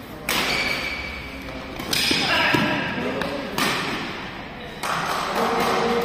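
Badminton rackets hitting the shuttlecock in a doubles rally: about four sharp hits, one every second or so, each echoing in a large hall. Voices can be heard under them.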